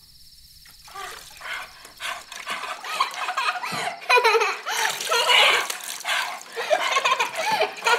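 Wordless human vocal cries: short, quick, rising and falling yelps and whines, loud and in close succession, starting about a second in after near quiet.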